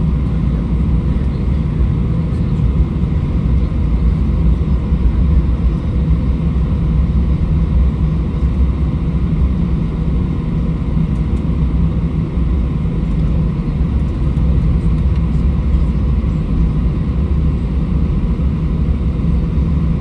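Steady low rumble of an Airbus A320's jet engines at taxi power, heard inside the cabin while the airliner taxis, with no spool-up.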